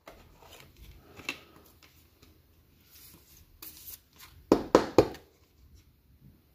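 A trading card slid by hand into a rigid plastic top loader: soft plastic rustling and light scraping, then three sharp clicks in quick succession about four and a half seconds in.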